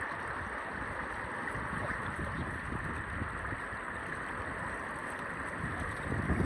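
Fast-flowing river water rushing steadily, with wind buffeting the microphone in low gusts that grow louder near the end.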